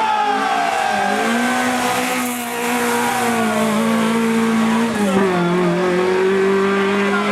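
Rally car engine running hard at high revs, its pitch stepping up about a second in and down about five seconds in, with falling-pitch sweeps over it.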